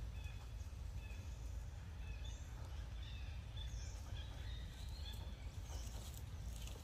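Outdoor ambience: a steady low rumble with faint, short, high-pitched chirps and squeaks scattered throughout.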